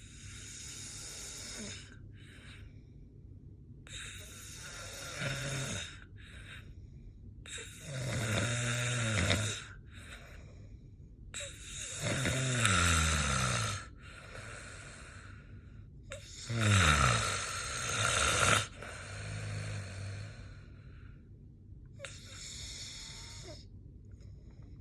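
Snoring: a run of snores every three to four seconds. The three loudest come in the middle, and each falls in pitch as it goes.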